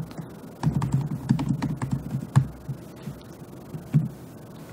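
Typing on a computer keyboard: a quick run of keystrokes for about two seconds, then one more click about four seconds in.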